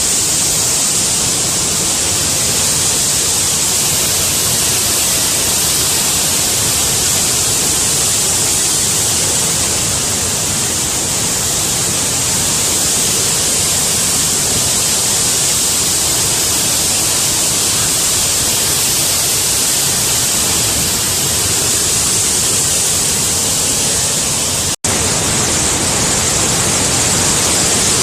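Steady, loud rush of floodwater pouring through during heavy rain, a continuous hissing roar of water. It breaks off for an instant about 25 seconds in and carries straight on.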